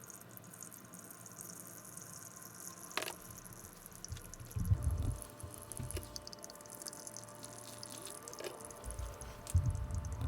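Coffee dripping and trickling into a carafe while brewing, with a click about three seconds in and two dull thumps, one near the middle and one near the end.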